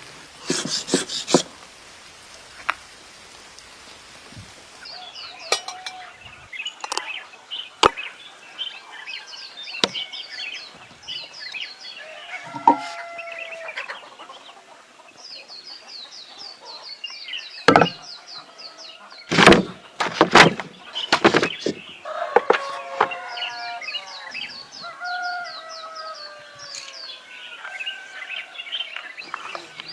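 Birds chirping and calling, with quick high chirps and slower falling calls, punctuated by a few sharp knocks. The knocks are loudest in a cluster past the middle.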